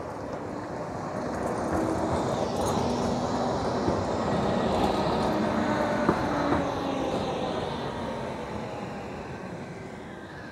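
A Crotram TMK 2200 low-floor tram passes close by. Its wheels rumble on the rails and its traction motors whine. The sound swells as the tram goes past, with a couple of sharp clicks in the middle, then fades as it moves away.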